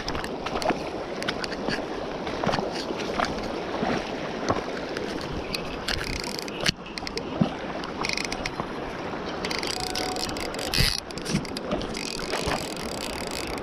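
Shallow river water rushing steadily, with scattered knocks and rustles as the fly rod is handled and a jacket sleeve brushes over the microphone.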